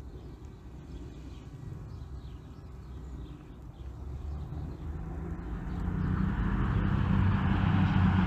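A train approaching, its low rumble growing steadily louder from about halfway through.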